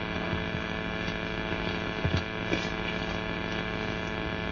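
Steady electrical mains hum, a buzz of many evenly spaced tones.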